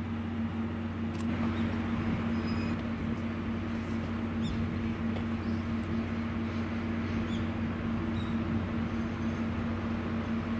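DE10 diesel locomotive's engine idling at a steady, unchanging pitch while the locomotive stands waiting.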